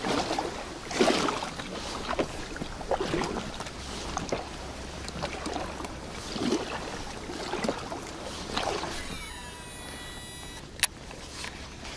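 Kayak paddle strokes dipping and splashing in the water beside an inflatable packraft, about one stroke a second. Near the end comes a brief whir from the fishing reel as a cast goes out, then a sharp click.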